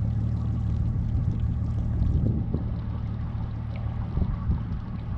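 Bass boat's motor running with a steady low hum.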